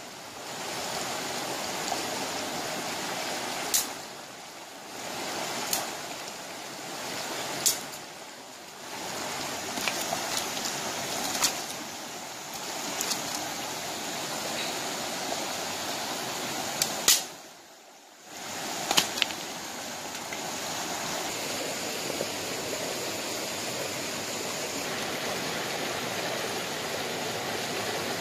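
Shallow stream rushing over stones, a steady even rush of water, with a few sharp clicks scattered through it.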